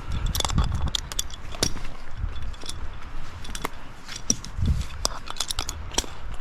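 Scattered clicks and clinks of tree-climbing gear being handled, with a low wind rumble on the microphone.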